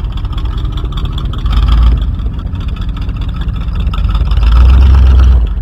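Vehicle engine running steadily under load while a tow strap pulls the Jeep onto the trailer, with two heavy low rumbling surges, one about a second and a half in and a longer one about four and a half seconds in.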